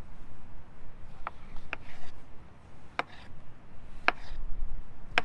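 Kitchen knife slicing through large fresh mushrooms and knocking on a wooden cutting board: five separate chops at an uneven pace.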